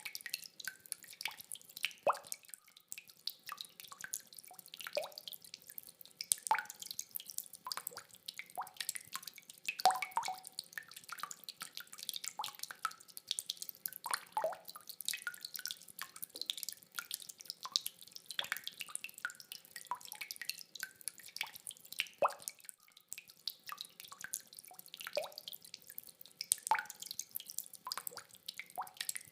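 Rainwater dripping: irregular drops land one after another, many with a short pitched plink, over a faint hiss of rain.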